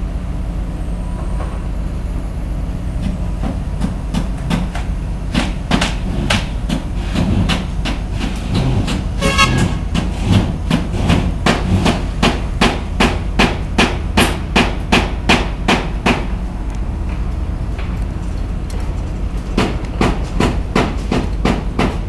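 Hammer blows repeated at about two a second, coming in a long run and then a few more near the end, over a steady low rumble of site noise.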